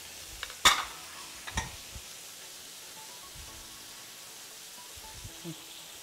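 Kitchenware knocking at the counter: one sharp knock about half a second in, a lighter one about a second later and a few small ticks, over a steady faint hiss.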